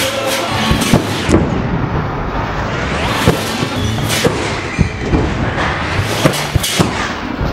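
Loud electronic background music with hard, irregular drum hits, its high end swelling and fading every few seconds.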